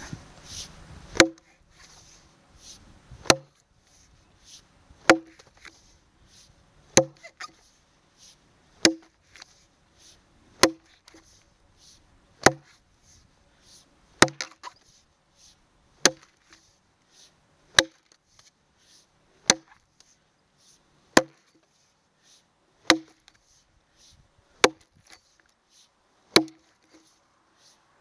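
Jersey-pattern axe chopping a notch into a log to buck it: sharp, single chops at a steady pace of roughly one every two seconds, some fifteen strikes in all.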